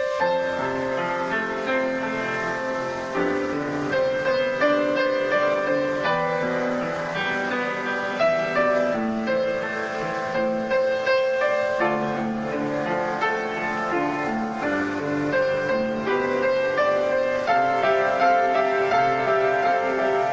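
Piano playing a slow, continuous melody over chords, each note struck and left to ring.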